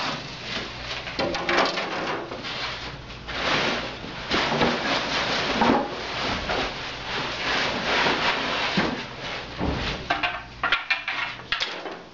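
Wooden cabinet panels and parts being handled out of their box: irregular sliding, rubbing and knocking of wood on wood.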